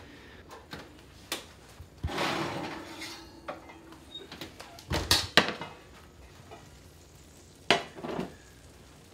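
Kitchen clatter of heavy cast iron skillets being handled, with an oven door opening and shutting: a few sharp clanks, the loudest about five seconds in and another near eight seconds, amid lighter knocks.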